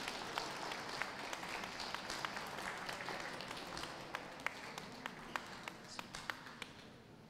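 Audience applauding, a crowd of hand claps that thins out and fades away toward the end.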